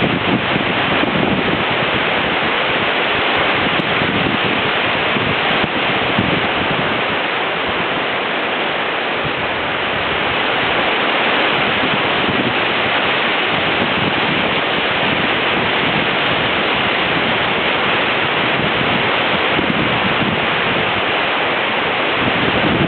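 Strong wind blowing through trees and hedges: a continuous rushing of leaves and branches that eases slightly and builds again, with wind buffeting the microphone.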